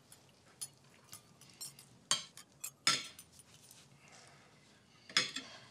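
Knife and fork clinking against dinner plates in scattered, irregular clicks, the loudest about two and three seconds in and again near the end.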